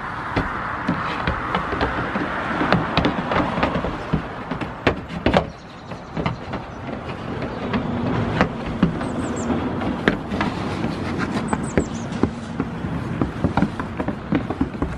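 Goat kids' hooves tapping and clattering on a small wooden hut's roof as they jump about: irregular sharp knocks over steady outdoor background noise.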